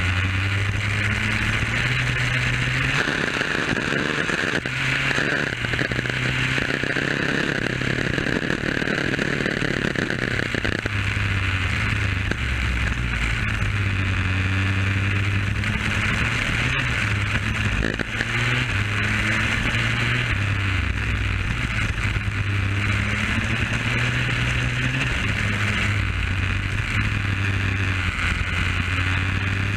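Superkart's two-stroke engine heard onboard at speed, its pitch rising again and again under acceleration and dropping when the throttle is lifted for corners. The engine is being run in.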